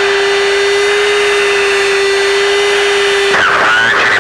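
A steady single-pitched tone on the aircraft's radio or intercom over constant cockpit noise, cutting off suddenly about three seconds in, after which a garbled radio voice starts.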